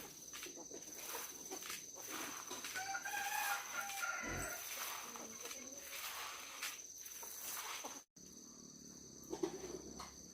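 A rooster crows once, about three seconds in, over a steady high insect drone and scattered clicks.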